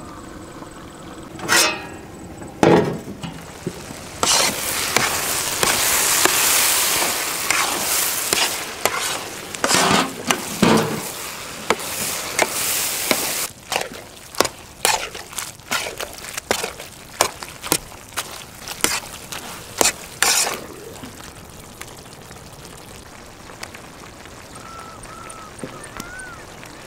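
Mushroom pepper fry sizzling in a large wok while it is stirred with a ladle. Two loud knocks come about two seconds in, then a long stretch of loud sizzling and scraping, then a run of sharp ladle knocks and scrapes against the pan. It settles to a low sizzle near the end.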